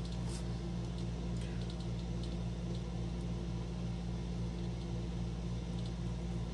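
Steady electrical hum of a room air conditioner running, one constant low tone.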